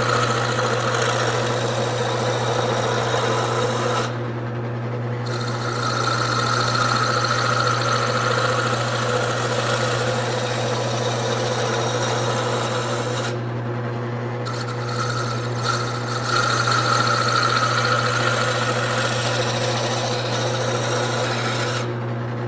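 Wood lathe running with a turning tool cutting a spinning wooden blank, a steady scraping over the motor's hum as the blank is roughed down to round. The cutting stops briefly about four seconds in and again around thirteen seconds in, leaving only the lathe's hum.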